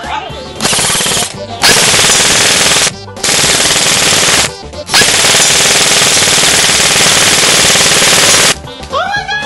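Automatic gunfire in four long, loud bursts separated by short pauses, the last and longest lasting about three and a half seconds.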